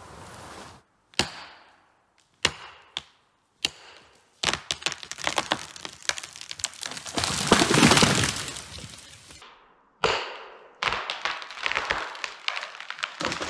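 A giant white pine being felled. Several sharp cracks in the first few seconds as the hinge wood gives. Then a long rush of cracking and snapping branches builds to the loudest crash about eight seconds in as the tree comes down, with more snapping near the end.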